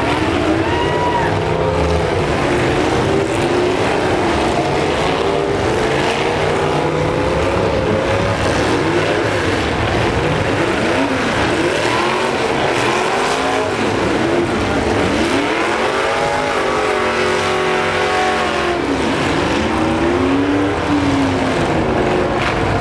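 Several demolition derby trucks' engines revving together, each pitch swooping up and down as they accelerate and back off between hits.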